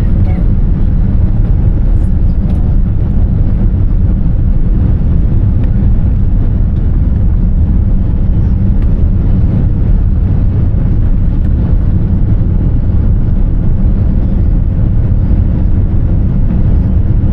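Boeing 787-10 airliner cabin noise in flight: a steady, loud low rumble of engines and airflow, with no change or impacts.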